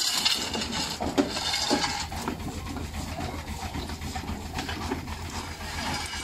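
Steel shovel scooping broken brick and stone rubble, with gritty scrapes and clatters, loudest just after the start. Under it runs the steady rumble of a belt-driven stone crusher powered by a portable steam engine.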